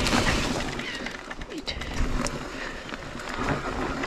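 Electric mountain bike being ridden on a dirt trail: a steady rush of tyre and wind noise on the camera microphone, with scattered sharp clicks and rattles from the bike.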